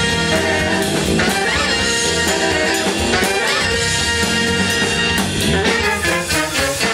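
Live funk band playing, a horn section of saxophones and trumpet over electric guitars, keyboard and drum kit.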